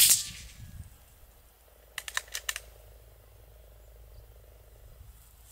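A single sharp crack from a .22 LR Anschütz rifle shot, dying away over about half a second. About two seconds later comes a quick run of four or five metallic clicks from the bolt being worked to reload.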